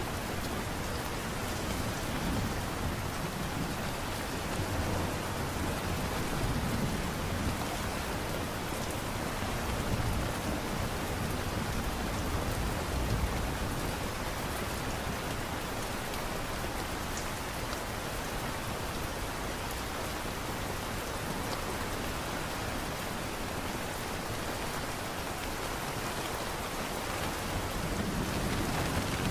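Steady light rain falling, a constant hiss of drops, with a low rumble swelling up now and then beneath it.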